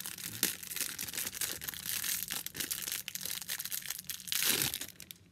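Clear plastic packaging bag crinkling and rustling in the hands as a mini hand drill is unwrapped from it; the crackling stops near the end.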